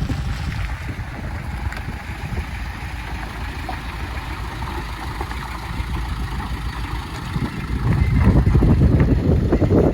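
Heavy truck's diesel engine running, mixed with wind buffeting the microphone; the rumble grows louder about eight seconds in.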